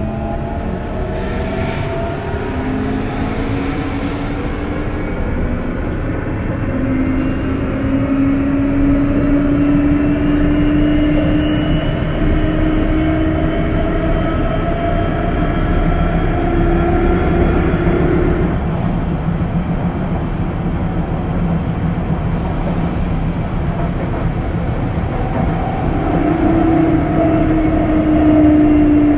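Sotetsu 8000 series train's Hitachi GTO-VVVF inverter and traction motors whining under a steady rumble of wheels on rail, heard from inside the car. The whine rises slowly in pitch as the train accelerates and cuts off about two-thirds of the way through as power is shut off and the train coasts. Near the end it comes back, falling in pitch, as the train brakes.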